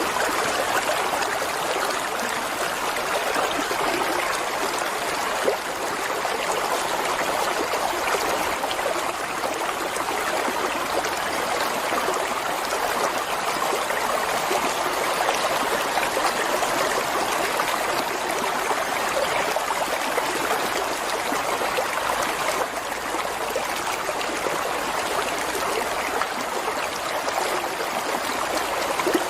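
Flowing water running steadily, an unbroken rush with no pauses.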